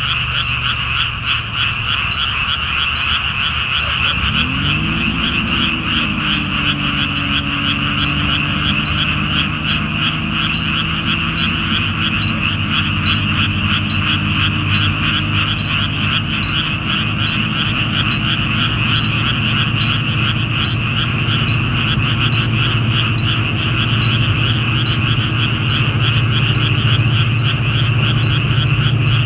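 Dense chorus of frogs calling from flooded rice paddies, a fast, continuous pulsing croak. From about four seconds in, a low engine drone comes in, rising briefly in pitch and then holding steady, and grows louder near the end.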